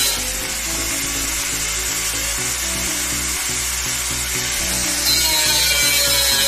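Angle grinder running against a steel drum, with a high hiss and whine that grows stronger about five seconds in. Background music plays under it.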